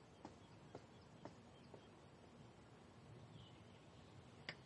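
Near silence with faint footsteps, about two steps a second at first, fading away, then two slightly louder taps near the end.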